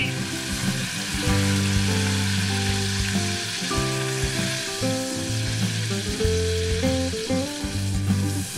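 Brown butter sauce sizzling steadily in a small copper saucepan held just off the burner, with lemon juice squeezed into it about halfway through. Background music with sustained, stepping notes plays over the sizzle.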